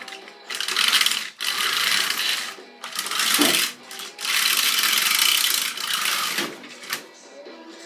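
Radio-controlled car driving on tires studded with screws, in about four loud bursts of throttle with brief let-offs between them, then fading as it moves off near the end.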